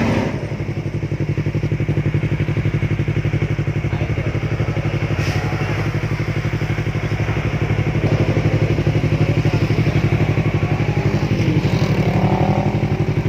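Yamaha R3's parallel-twin engine idling steadily through an Akrapovic slip-on exhaust, a fast, even pulsing note.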